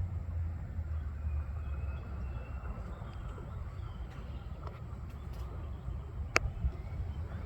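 Outdoor ambience: a steady low rumble with a faint thin call or two, and one sharp click about six seconds in.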